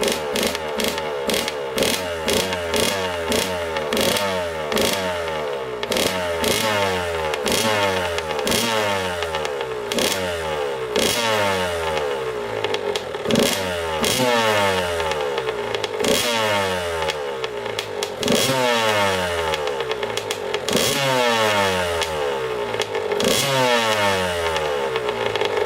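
Yamaha YZ85 85cc two-stroke single with an FMF Powercore 2 shorty exhaust, revved over and over in quick throttle blips of roughly one a second, its pitch rising and falling each time, with crackling pops from the exhaust.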